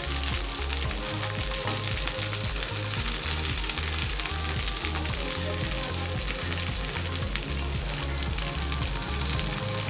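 Boiled moringa leaves sizzling and crackling in hot oil with a tempering of mustard seeds and cumin. A low, regular background beat runs underneath.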